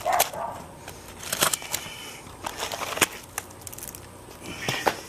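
Asphalt shingles and sheet-metal step flashing being handled on a roof: scattered light taps, scrapes and crackles, with a few sharper clicks.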